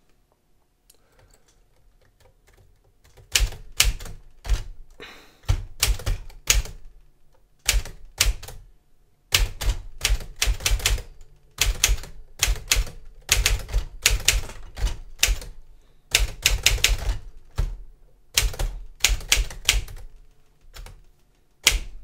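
Smith-Corona Silent-Super manual typewriter being typed on: irregular runs of sharp typebar strikes with short pauses between words and phrases, starting about three seconds in.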